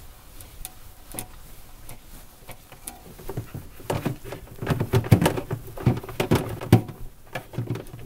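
A cloth wiping the inside of a fridge's clear plastic salad drawer, a run of rubbing and knocking of cloth and hand against the drawer walls that starts about three seconds in. Before that there is only faint rubbing on a glass shelf.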